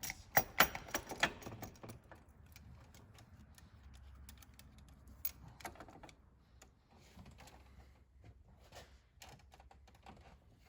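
A quick run of sharp metallic clicks and clinks for about two seconds, then scattered lighter clicks: hand tools and engine parts being handled while fuel injectors are fitted.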